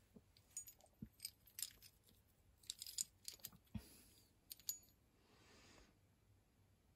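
Metal parts of a vintage bicycle saddle clamp (clamp plates, washers and bolt) clinking against each other as they are handled. The result is a run of sharp, light clicks over about four seconds.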